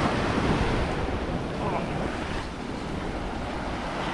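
Ocean surf washing onto the beach, with wind rumbling on the microphone.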